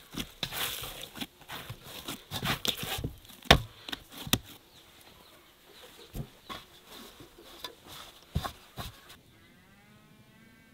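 Hands patting and slapping a soft risen dough in a metal bowl: a run of soft slaps and knocks, with two sharper ones about three and a half and four seconds in. Near the end, one long animal bleat.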